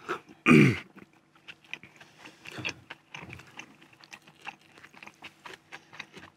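Close-up chewing and biting of baked cheese momos: soft wet mouth clicks and small crunches scattered through. A short voice sound falling in pitch, like an "mm", comes about half a second in and is the loudest moment.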